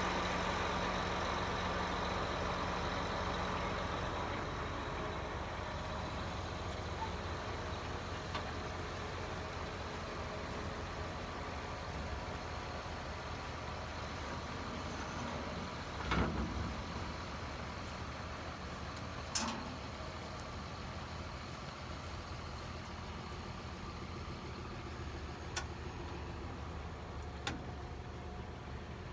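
Tractor engine running steadily and slowly fading, with a few sharp knocks from work on the machinery.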